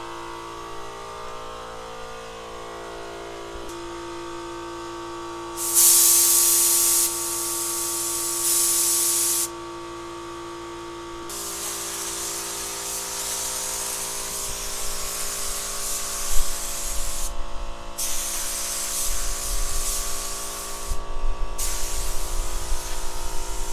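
Compressed-air gravity-feed spray gun hissing as it sprays the last coat of paint onto a car: two short bursts of a second or so, then longer near-continuous spraying broken by two brief pauses.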